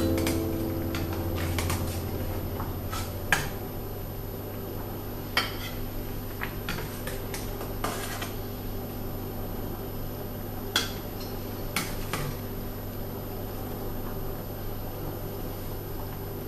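A metal spoon clinks against a stainless steel cooking pot and a ceramic plate as boiled ravioli are lifted out and served. The clinks come singly and irregularly, about a dozen in all, over a low steady hum.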